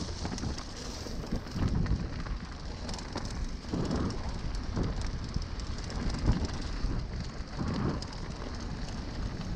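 Mountain bike rolling fast over a snow-dusted dirt trail, picked up by a handlebar-mounted camera: a steady rumble of tyres and rattling bike, with irregular louder jolts.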